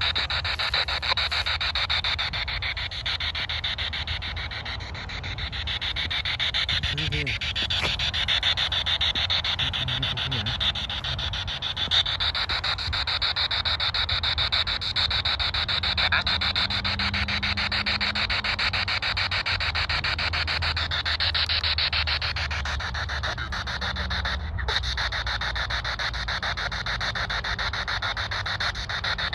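Handheld spirit box radio sweeping the FM band, giving a steady rush of choppy radio static.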